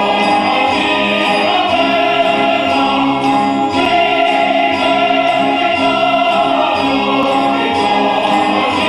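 Background music: a choir singing over instruments, with a light percussion beat about twice a second.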